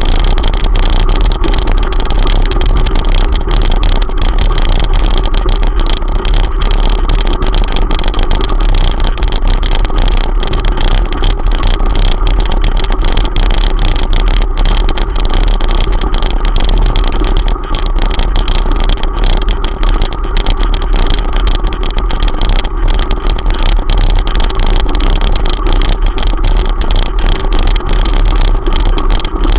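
Steady wind buffeting on a handlebar-mounted camera's microphone, with a strong low rumble, mixed with the crunch and rattle of bicycle tyres rolling over a gravel track.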